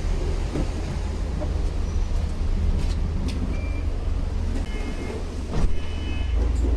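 Road vehicle running with a steady low rumble, and short high electronic beeps sounding a few times in the second half, plus a brief knock about five and a half seconds in.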